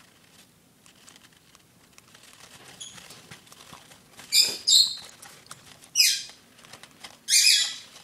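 One-month-old baby bird giving four loud, harsh, high-pitched calls in the second half, one of them falling in pitch, after faint rustling and ticking from handling.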